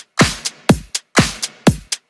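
Background electronic dance music with a steady kick drum, about two beats a second, and a hissing top end between the beats.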